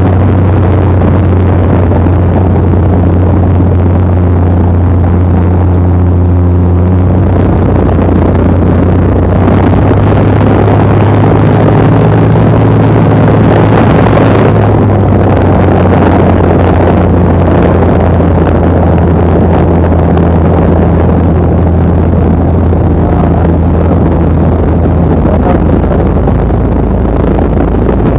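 Piston engine of a light aircraft droning steadily at cruise, with rushing air noise, heard from the aircraft flying alongside the glider. The drone's pitch shifts slightly about eight to ten seconds in, then holds steady.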